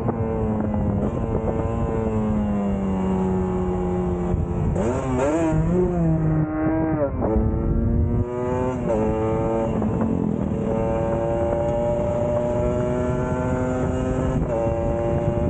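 Motorcycle engine under way, its pitch climbing and sagging with the throttle and jumping several times as it changes gear.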